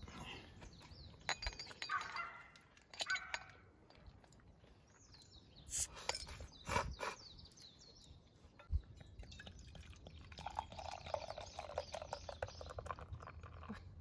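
A glass beer bottle is opened with a Swiss Army knife's bottle opener, with a few metal clicks and clinks as the cap is pried off. Near the end, beer is poured from the bottle into an insulated metal tumbler for about three seconds, splashing and foaming.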